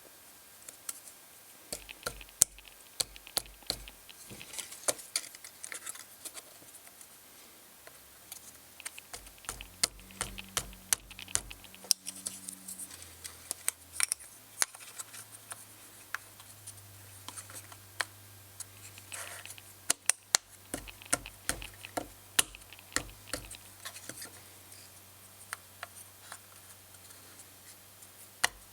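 Side panels of a small wooden speaker-kit case being handled and pushed into place: a run of irregular small clicks, taps and scrapes, with a few sharper knocks.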